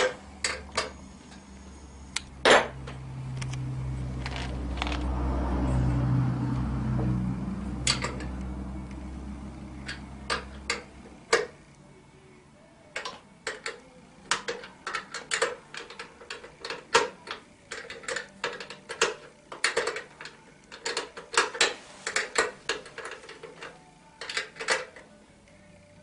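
A wrench working the ATV's chain-adjuster nuts tight: a string of light metal clicks as it takes bites on the nuts, irregular and about one or two a second, through the second half. Before that a low hum swells and fades over several seconds.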